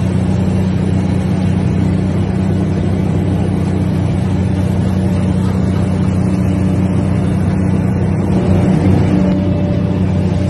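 Heavy diesel engine running steadily under load, a low even drone, swelling slightly about eight or nine seconds in.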